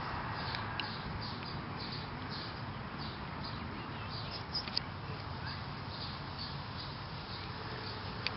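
Outdoor background: a steady hiss with short, high chirps repeating throughout and a couple of sharp ticks.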